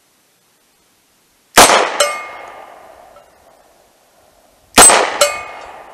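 Two shots from a Rock Island Armory M206 .38 Special snub-nose revolver, fired double action about three seconds apart. Each shot is followed a split second later by the clang of a steel target being hit, which rings on and fades.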